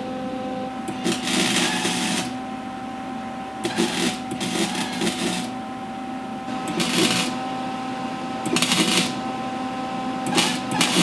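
Electric welder laying short welds: a crackling sizzle in about five bursts of half a second to a second and a half each, with pauses between, over a steady hum.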